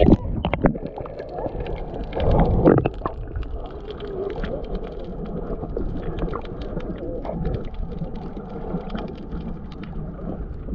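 Muffled underwater sound picked up by a submerged camera in the sea: a low rumble and sloshing, with sharp hits at the start and a loud burst of churning water about two to three seconds in, then scattered faint clicks and crackles.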